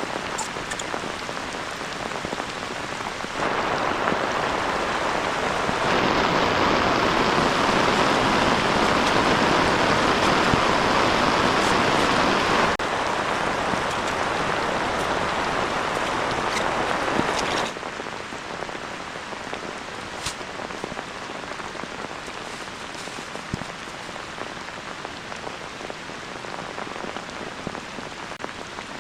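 Heavy rain falling steadily. The loudness jumps up and down abruptly a few times: louder about 3 s in, loudest from about 6 to 13 s, and quieter after about 18 s.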